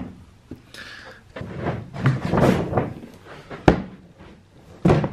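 Cardboard gift box being handled and opened over a paper shopping bag: rustling and scraping, with a sharp knock about three and a half seconds in and another near the end.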